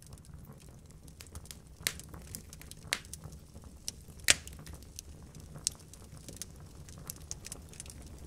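Fire crackling, with scattered sharp pops over a low steady rumble; the loudest pop comes about four seconds in.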